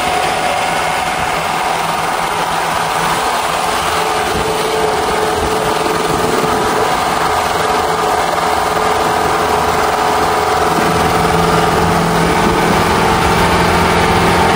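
Four-wheel-drive jeep driving along a rough dirt track: steady engine and road noise.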